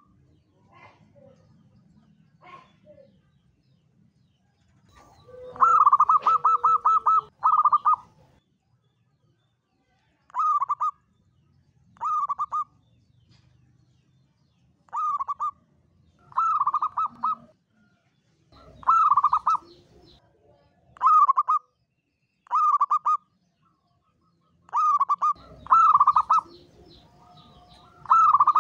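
Zebra dove (local Javanese perkutut) cooing. It gives short phrases of rapid, bubbling coo notes every couple of seconds, with one longer phrase about six seconds in. This is the long-phrased 'kuk 7 panjang' song style prized in perkutut.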